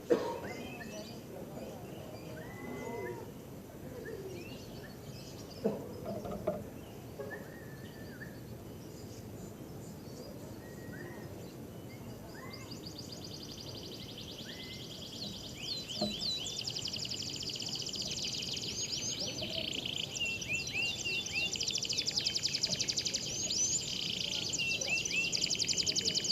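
Canaries singing: scattered short chirps at first, then from about halfway a canary's fast, high-pitched trilling song sets in and runs on, with a low background murmur underneath.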